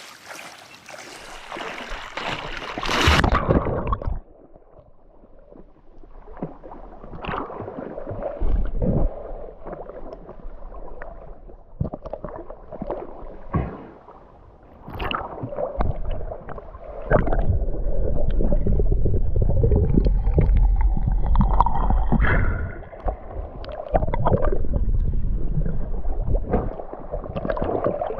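Splashing as a person wades through shallow seawater. From about four seconds in, muffled sloshing and gurgling of water around a camera at and just below the surface, coming and going in uneven surges as the swimmer moves.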